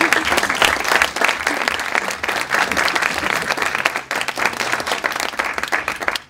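A roomful of audience members applauding, many hands clapping together. The clapping stops abruptly near the end.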